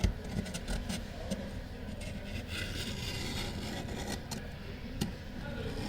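A small tool scraping and clicking against a Galaxy A13 phone frame, cleaning off old screen adhesive, with a sharp click at the start and another near the end. A steady low hum runs underneath.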